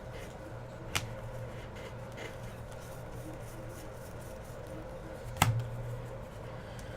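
Trading cards handled on a table during a box break: two sharp taps about four seconds apart, the second louder, over a steady low hum.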